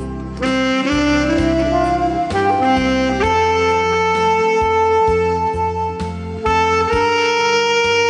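Alto saxophone playing a slow melody over a backing track with a bass line and a steady beat: a climbing run of short notes in the first few seconds, then a long held note.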